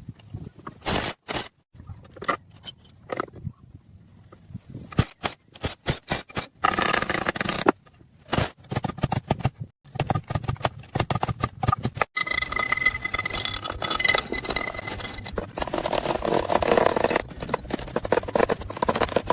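Scraping and clinking of hand tools on metal, in short stretches that start and stop abruptly, with a steady high whine for a few seconds past the middle.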